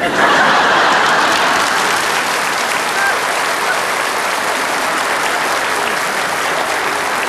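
Studio audience applauding, breaking out suddenly at full strength and then going on steadily.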